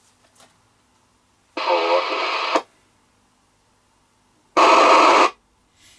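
FM CB radio speaker giving two short bursts of hiss, each about a second long, the second louder, on incoming transmissions.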